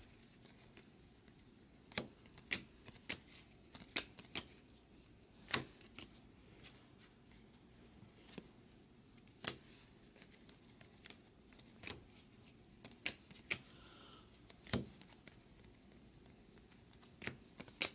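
2022 Bowman baseball cards being flipped through by hand and laid down on a table: faint, irregular snaps and clicks of card stock.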